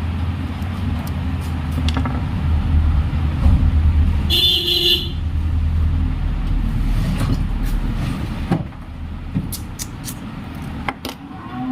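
Road traffic passing close by: a motor vehicle's low engine rumble that drops away about eight and a half seconds in, with a short horn toot about four seconds in. Scattered small clicks are heard throughout.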